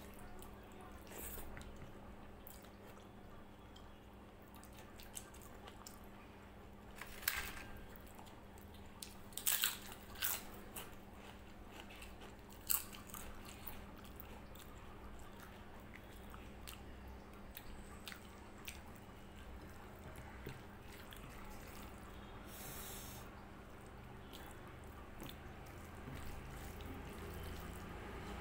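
Mouth-close eating sounds of rice and mung dal eaten by hand: chewing and fingers mixing the wet rice on the plate, with a few sharp clicks or crunches in the middle stretch. A faint steady hum lies underneath.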